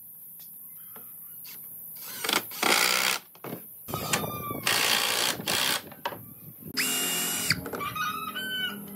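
Cordless drill/driver running in several short bursts about two seconds in and after. Some bursts carry a rising motor whine as the motor spins up, and a steadier whine comes about seven seconds in.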